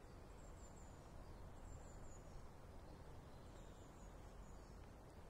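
Near silence: faint outdoor ambience, a steady low rumble with a few short, high, thin bird chirps every second or two.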